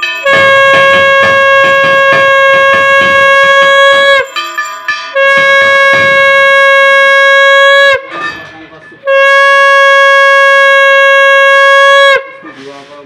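Conch shell (shankha) blown three times as part of the puja worship, each a long, loud, steady note of three to four seconds that sags slightly in pitch as it ends.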